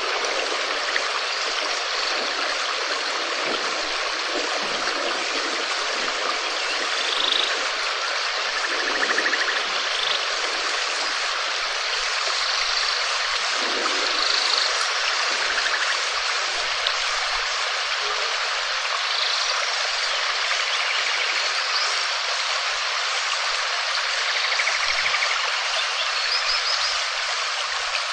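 Steady, dense rainfall: an even hiss that holds at one level throughout.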